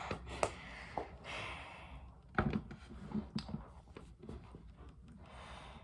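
Plastic action figure being handled and set down on a tabletop: soft rustling, then a sharp knock about two and a half seconds in and a few lighter knocks after it.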